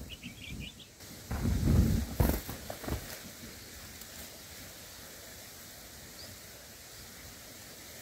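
A quick run of about six short high bulbul chirps at the nest, then a couple of seconds of loud low rumbling and knocks, over a steady background hiss with one more faint chirp.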